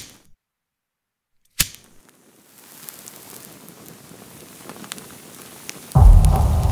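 Experimental electronic dance track in a break: the music cuts off dead into silence, a single sharp hit sounds about one and a half seconds in, then a faint crackling texture with scattered clicks slowly swells, and a loud, deep bass-heavy section drops in about six seconds in.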